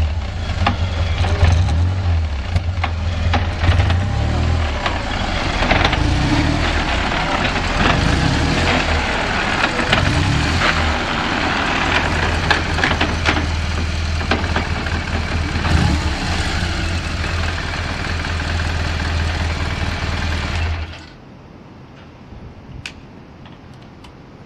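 BMW R1200GS boxer-twin engine idling steadily, which the seller describes as a stable idle with no abnormal noises. It is switched off about 21 seconds in, leaving only faint background sound with a few light clicks.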